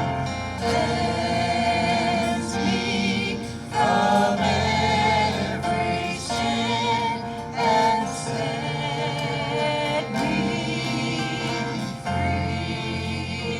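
Group of singers singing a gospel hymn with instrumental accompaniment, the voices holding wavering, vibrato-laden notes.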